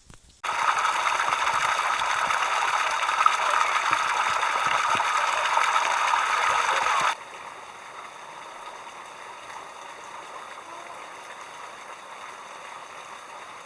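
Running stream water, a steady rushing that starts abruptly. It is loud and close for about seven seconds, then cuts suddenly to a much quieter stretch of the same flowing sound.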